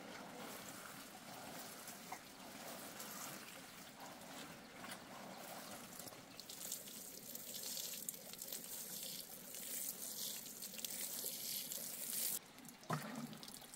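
Water sprinkling from a plastic watering can's rose onto garden seedlings and soil, a steady trickling spray that cuts off suddenly near the end.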